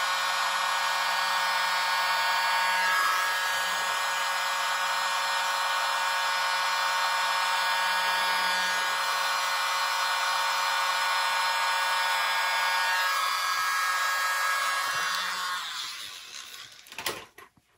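Small handheld electric mini blower running steadily, a motor whine over a rush of air, as it blows wet acrylic pour paint outward into a bloom. It cuts off about sixteen seconds in.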